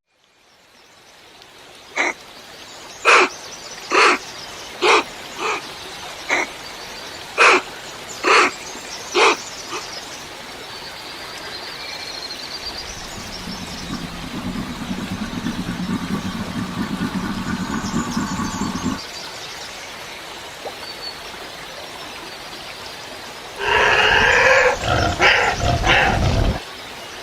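A run of about nine short, sharp yapping calls roughly a second apart, then a steadier low growl-like sound for several seconds, and a loud rough outburst near the end. These are animal calls presented as a thylacine's voice, though no authentic sound recording of the thylacine is known to exist.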